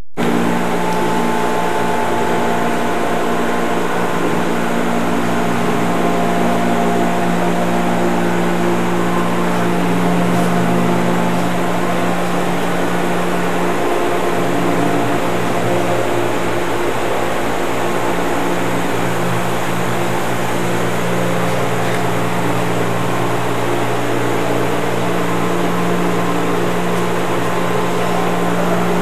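A steady machine hum with a low droning tone, unchanging throughout.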